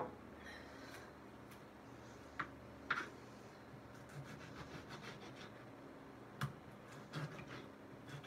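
Knife knocking on a cutting board while slicing a tomato: scattered soft taps, a few seconds apart, the sharpest a little over six seconds in.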